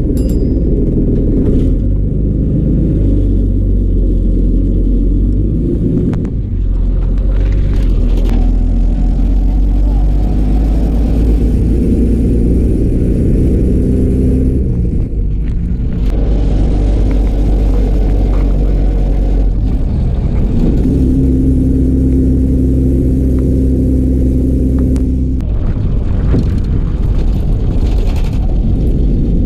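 KSRTC bus engine running under way, a loud low rumble whose note rises and falls, dropping away briefly several times.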